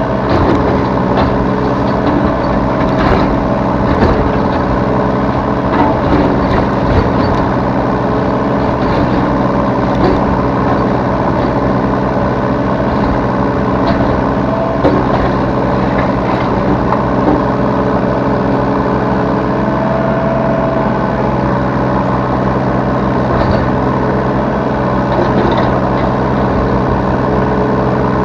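Yanmar B3 Sigma 3-ton mini excavator's diesel engine running steadily while it works, with scattered knocks and a brief higher whine about two-thirds of the way through.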